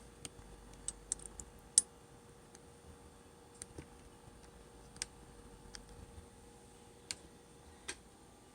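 Scattered light clicks and taps, about a dozen over several seconds at uneven spacing, the sharpest about two seconds in, over a faint steady hum.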